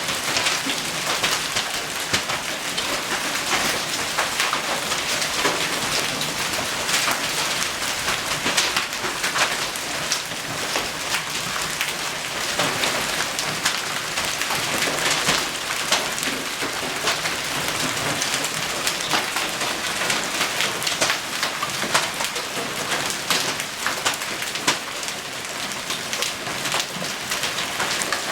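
Heavy rain and hail pelting down: a dense, steady downpour with many sharp individual hits of hailstones striking surfaces.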